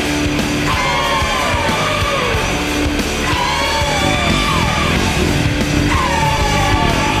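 Loud hard rock music with yelled vocals, with swooping notes that fall in pitch about every two to three seconds.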